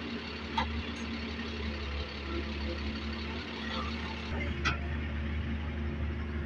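Diesel engine of a Doosan DX140W wheeled excavator running steadily while it loads sand, with a couple of faint clicks.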